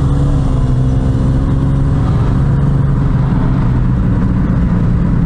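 A car driving at a steady pace, heard from inside the cabin: a constant engine drone with low road rumble.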